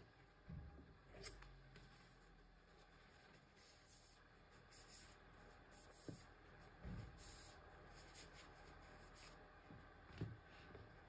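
Faint rustling and scratching of a paper tissue wiping a razor blade clean, with a few soft knocks of handling.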